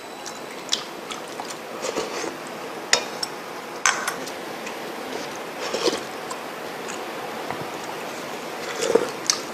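Eating soup from a bowl with a metal spoon: scattered light clinks and knocks of the spoon against the dish, a few seconds apart, with soft mouth sounds of eating.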